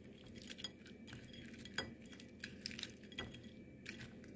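Hands mixing raw shell-on prawns with seasoning on a ceramic plate: faint, irregular clicks of shells and fingertips tapping the plate as the prawns are turned and rubbed, with one sharper click about two seconds in.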